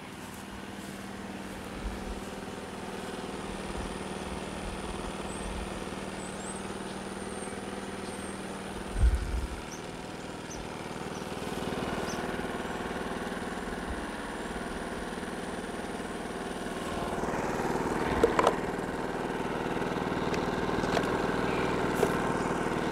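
Generac IQ3500 inverter generator's 212cc OHV engine running steadily under a light load. There is one thump about nine seconds in, and the engine sounds louder and closer toward the end.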